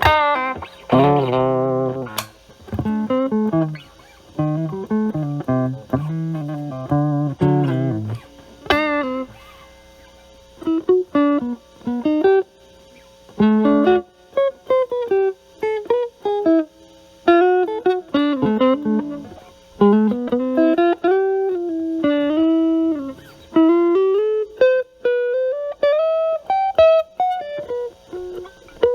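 Electric guitar, a Stratocaster with single-coil pickups, played through a Metal Pedals Rawhide overdrive pedal set to gain 8 to 9 into a Marshall Valvestate amp's drive channel. Overdriven chords for about the first eight seconds, then single-note lead lines with bends and slides. About two-thirds through the tone cleans up.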